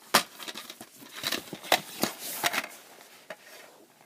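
A plastic DVD case being handled and opened: a handful of sharp clicks and snaps, with a short stretch of rustling about two seconds in.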